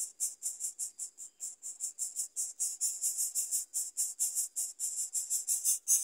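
Yellow-vented bulbul nestlings begging: a rapid, even string of very high-pitched cheeps, about five or six a second, getting louder near the end.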